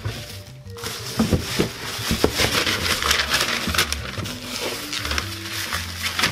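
Tissue paper rustling and crinkling as shoes are handled in a paper-lined shoebox, starting about a second in, over background music.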